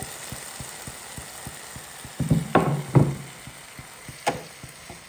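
Tomato and vegetable masala sizzling in a nonstick frying pan while a wooden spatula stirs it. A few loud knocks and scrapes of the spatula against the pan come a little past halfway, and one more sharp knock follows about a second later.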